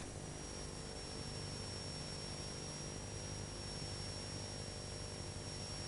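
Steady electrical mains hum and hiss with a thin, high-pitched steady whine; no music or voices.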